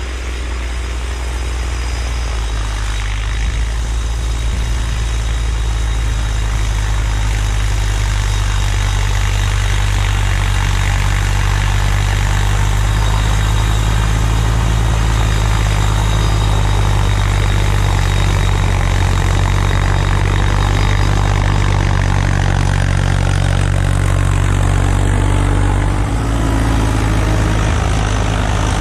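Kubota LX2610 compact tractor's three-cylinder diesel engine running steadily under load, driving a front-mounted snowblower, with a steady hiss over the engine drone. It grows louder over the first few seconds, then holds.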